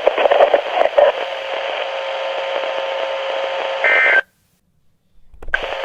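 NOAA Weather Radio broadcast heard through a receiver: steady static hiss with a faint steady hum tone, then a brief multi-tone beep about four seconds in. The signal then cuts out to complete silence for about a second before the hiss comes back.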